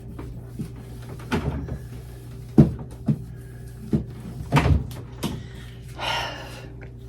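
Refrigerator shelves and containers being handled: about five separate clunks and knocks as things are set down or moved, then a short rustle near the end, over a steady low hum.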